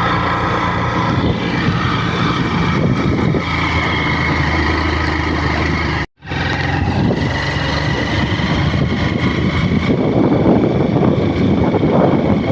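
A vehicle engine running steadily, cutting out completely for a moment about six seconds in.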